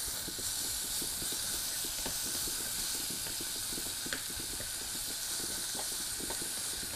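Sliced leek frying in hot oil in a clay pot: a steady sizzling hiss with many small crackles as it is stirred with chopsticks and cooked toward golden brown.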